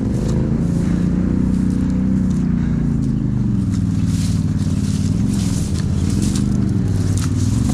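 Off-road vehicle's engine running at low, fairly steady revs as it crawls along a muddy trail, with irregular short scratchy noises over it.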